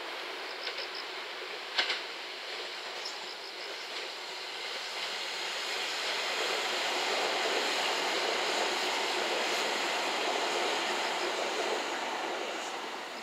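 JR West 227 series electric train running on the line: the steady noise of wheels on rail grows louder over several seconds, then eases off near the end. A single sharp click comes about two seconds in.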